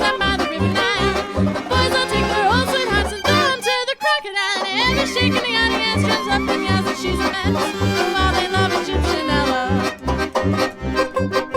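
Background music with a steady bass beat and a wavering lead melody; the bass drops out briefly about four seconds in, then the beat returns.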